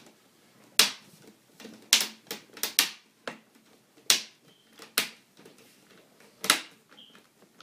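Plastic snap clips of a Toshiba Satellite C55-A5311 laptop's case clicking into place as the parts are pressed back together: about nine sharp clicks at irregular intervals.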